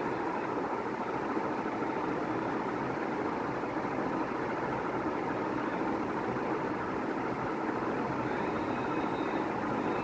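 National F560A1 56-inch industrial ceiling fans running at speed: a steady rush of moving air. The bearings are freshly greased, so the fans run smoothly without bearing noise.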